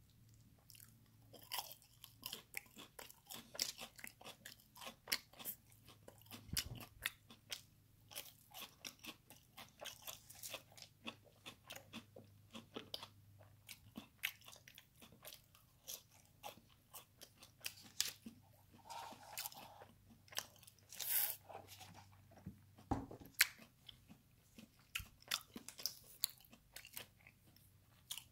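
Close-up chewing and crunching of crispy fried food, a breaded jalapeño cheese bite and crinkle-cut fries, with sharp crunches several times a second throughout and a few louder bites past the middle.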